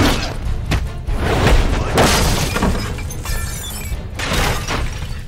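Movie fight-scene sound effects: several crashes with shattering and breaking, over a continuous music score.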